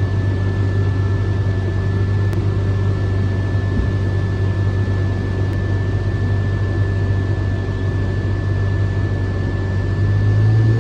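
Harvest machinery engine running steadily, a constant low hum with a thin high whine over it.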